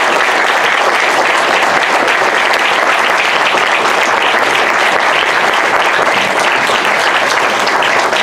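An audience applauding steadily after a speech, the dense clapping of many hands.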